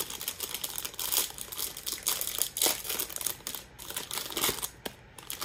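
Crinkling of a plastic blind-bag packet, handled and torn open by hand, in irregular crackly bursts.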